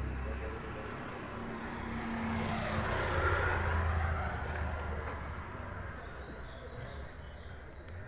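A road vehicle passing along the street. Its noise swells to a peak about three seconds in, then fades away.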